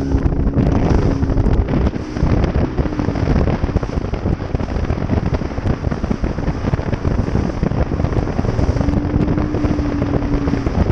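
Bass boat running fast over choppy water: heavy wind buffeting on the microphone and the hull slapping the chop. The outboard motor's steady tone shows through near the start and again near the end.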